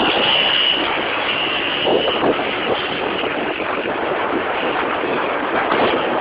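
Small motorcycles running at speed in a group on a road, engine noise mixed with heavy wind buffeting on the microphone.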